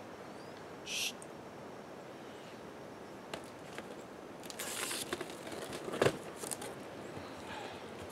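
Cardboard boxes being handled and opened: scuffs and rustles of cardboard flaps, a brief hiss about a second in, and a sharp knock about six seconds in.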